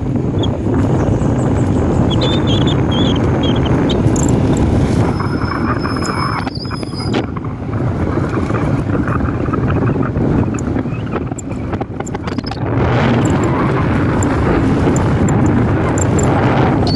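Wind buffeting the microphone of a camera on a moving motorcycle, with the motorcycle's engine running underneath. The wind noise eases briefly about seven and again about twelve seconds in.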